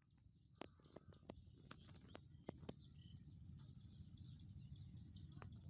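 Near silence: faint outdoor ambience, a low rumble with scattered small ticks and faint chirps.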